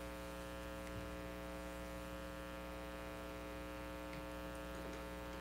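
Steady electrical mains hum: a low, unchanging buzz made of several fixed tones.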